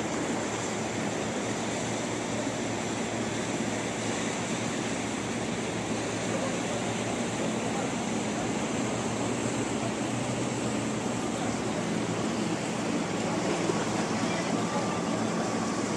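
Steady outdoor background noise: a low hum under an even wash, with no distinct events.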